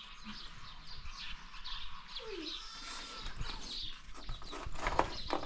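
Small birds chirping repeatedly, with a few sharp knocks about five seconds in.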